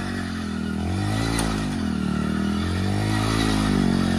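Small single-cylinder commuter motorcycle engine revved up and down in repeated swells, about three rises and falls.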